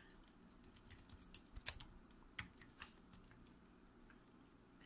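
Faint typing on a computer keyboard: a quick, uneven run of about a dozen keystrokes.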